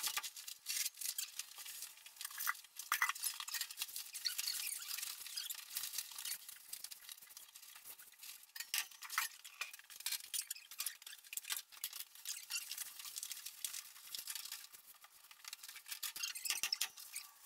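Sheet of tar paper rustling and crinkling as it is held up and pressed against a wooden wall, with many small ticks and crackles.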